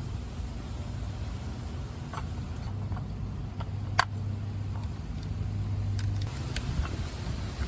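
Scattered light clicks and taps from small tools and door lock actuator parts being handled, over a low steady hum.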